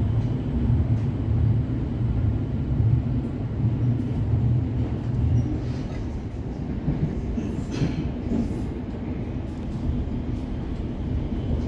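Melbourne suburban electric train running, heard from inside the carriage: a steady low rumble that eases a little about halfway through, with a few sharp clacks of the wheels over the track a little over halfway in.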